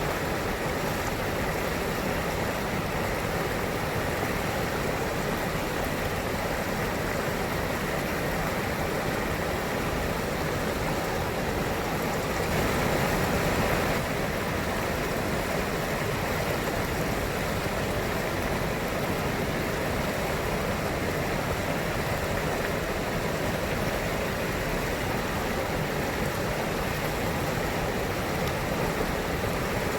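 Steady rush of flowing river water, briefly a little louder about halfway through.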